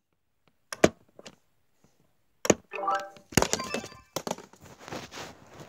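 A string of knocks and thumps from the phone camera being handled, with a short pitched tone about three seconds in and a denser stretch of knocking and rustling after it.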